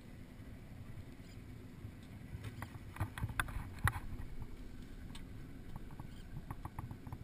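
Low rumble of wind and water around a small fishing boat afloat, with scattered clicks and knocks from gear being handled on deck, the loudest about three and four seconds in.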